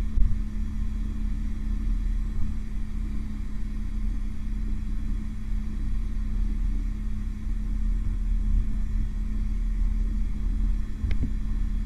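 Airbus H125 (AS350) helicopter heard from inside the cabin in a hover with a sling load: a steady low rumble of rotor and turbine under a constant hum, with one brief click near the end.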